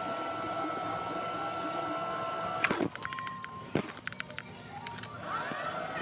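Shopping cart rolling down a store aisle with a steady high hum, broken about halfway by a sharp clack and two quick runs of three loud, short, high chirps about a second apart.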